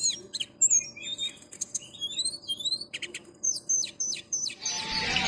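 Songbird chirping: quick sharp chirps and short rising whistles, repeated over and over. A steady hiss comes in near the end.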